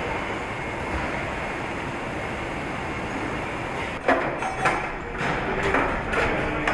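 Car assembly plant noise: a steady mechanical hum, then, from about four seconds in, a run of sharp metallic clanks and knocks with brief ringing.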